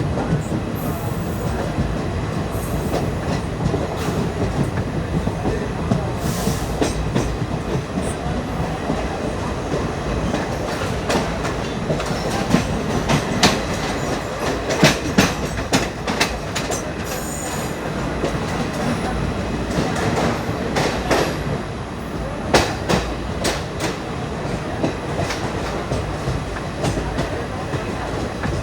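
Running noise inside an ICF passenger coach on the move: a steady rumble of wheels on track, with clusters of sharp clicks from the wheels crossing rail joints, thickest about halfway through and again a little later.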